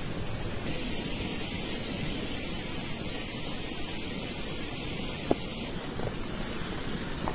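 A steady hiss over a constant noise bed. The hiss comes in about a second in, grows louder and higher at about two and a half seconds, and cuts off suddenly near six seconds.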